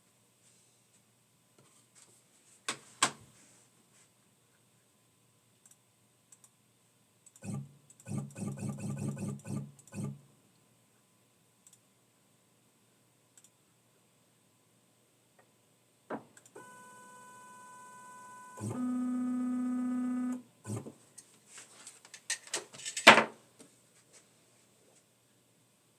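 Stepper motors of a Longmill CNC router whining in short runs as the gantry is jogged: a pulsing run about a third of the way in, then two steady higher whines in a row past the middle. Scattered clicks and knocks, with one sharp knock near the end.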